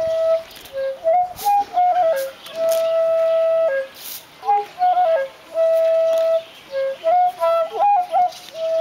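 Solo flute playing a melody of quick ornamented notes that each time settle on a long held note, the phrase repeating about every three seconds.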